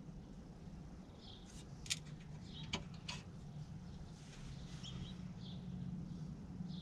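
Faint, scattered bird chirps with a few light sharp clicks about two to three seconds in, over a low steady hum.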